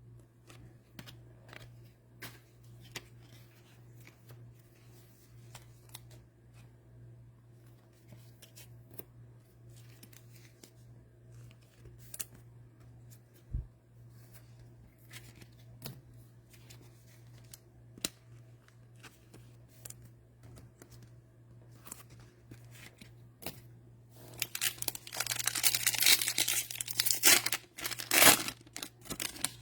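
Faint scattered clicks of card handling, then from about 24 seconds in a loud stretch of crackling and tearing as the cellophane wrapper of a Mosaic cello pack is torn open and crumpled. A steady low hum runs underneath.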